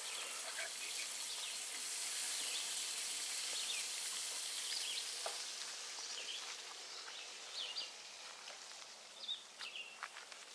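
Food sizzling on a camp grill (muffins being grilled): a steady hiss that grows fainter in the second half.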